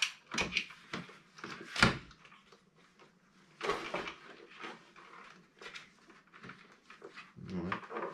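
Clicks, knocks and scuffing of hard plastic parts as batteries are pushed and fitted into the battery compartment of a Losi Super Baja Rey 2.0 RC truck, with one sharp knock about two seconds in.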